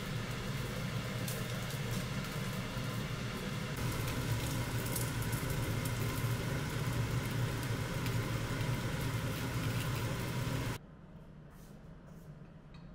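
Slices of nian gao (sticky rice cake) sizzling and crackling in a nonstick frying pan over a steady low hum. The sound cuts off abruptly about eleven seconds in, leaving quiet room tone.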